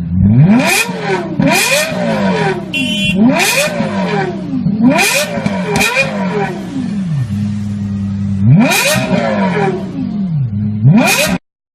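An engine being revved over and over, its pitch rising and falling several times. It settles briefly to a steady idle between revs and cuts off abruptly near the end.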